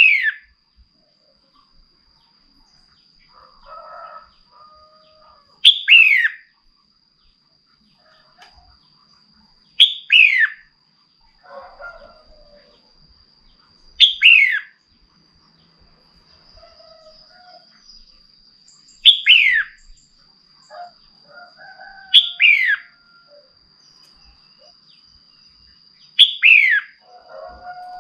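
Female red-whiskered bulbul giving a loud, short, downward-sweeping call, repeated about every four seconds. This is the call that stirs up male bulbuls.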